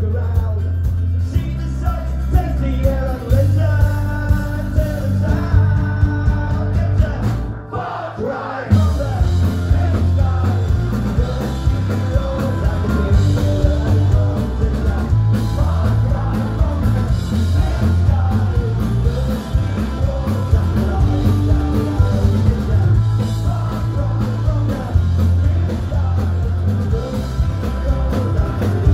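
Live folk-punk band playing with sung vocals over acoustic guitar, bass guitar, fiddle and drums. The music drops back briefly about eight seconds in, then the full band comes back in.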